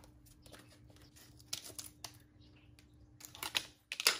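A plastic deli cup packed with paper towel being handled: scattered light plastic clicks and rustles, a few louder ones near the end.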